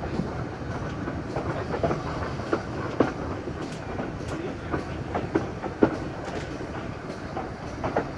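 Passenger train coaches running over jointed track, the wheels clicking irregularly over the rail joints above a steady low rumble, heard from an open carriage window.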